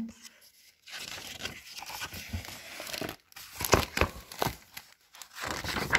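Paper pages of a picture book being handled and turned, rustling and crinkling in several spells, with a few sharper rustles around the middle and near the end.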